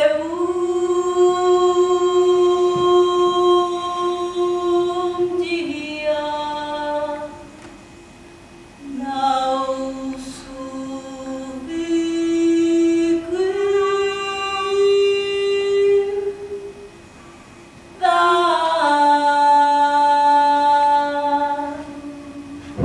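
One voice singing unaccompanied in long held notes that step up and down, in three phrases with short breaks about eight and seventeen seconds in.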